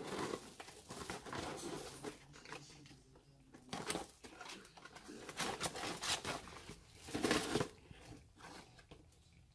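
Brown paper bag crinkling and scratching as live blue crabs crawl and claw inside it: irregular rustles, with louder crinkles about four seconds in and again about seven seconds in.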